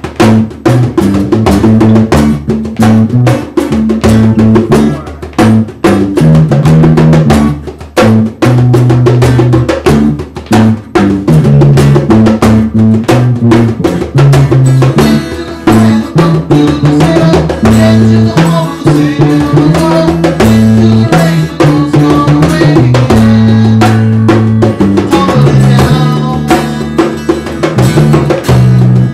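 Acoustic rock band playing a song: strummed acoustic guitar and electric bass over a hand drum beaten with the palms, the bass notes the loudest part.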